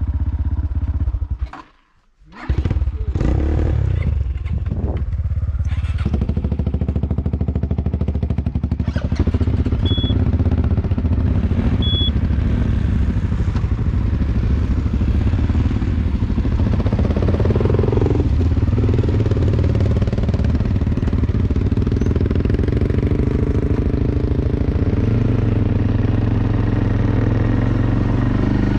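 A vehicle engine running steadily. It cuts out briefly about two seconds in, two short high beeps sound about two seconds apart around the middle, and the engine note steps up near the end.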